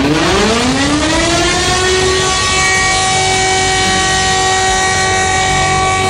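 Emergency-alert alarm sound with a civil-defence-style siren that winds up in pitch over about two seconds and then holds a steady wail, over a constant noise bed. The alarm repeats in cycles of roughly six and a half seconds, each broken by a short drop-out.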